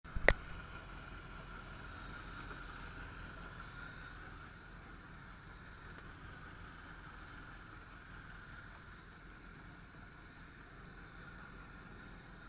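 Steady low hiss of wind and lapping water around a small boat on open water, with one sharp knock just after the start.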